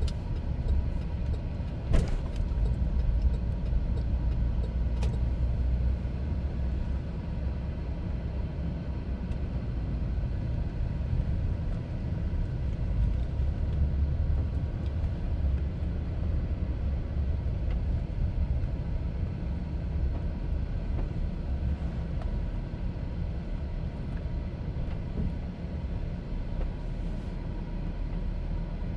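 Car running with a steady low rumble of engine and road noise, with a couple of short sharp clicks in the first few seconds.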